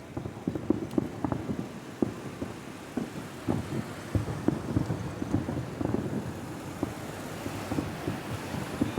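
Aerial fireworks bursting in a rapid, irregular series of booms over a steady low rumble.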